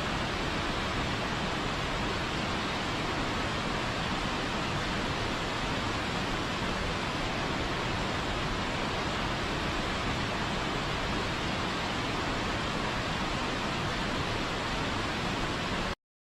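Steady rushing noise of a waterfall, cutting off suddenly near the end.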